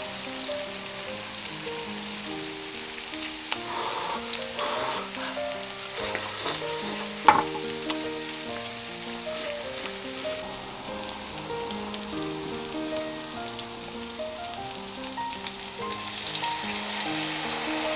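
Sliced meat and green onions sizzling as they fry on a cast-iron pot-lid griddle, with a sharp tap of a utensil on the griddle about seven seconds in. Piano music plays behind.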